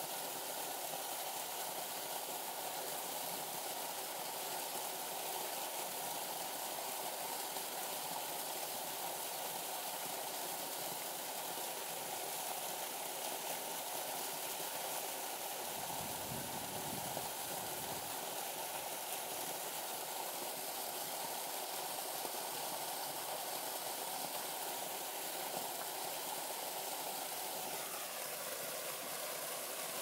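Small waterfall spilling into a shallow pool: a steady rush and splash of falling water. A brief low rumble comes about halfway through.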